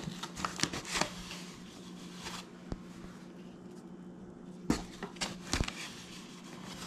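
Rustling of a flour bag and scraping of a measuring cup as flour is scooped out, in short scattered bursts about a second in and again near the five-second mark.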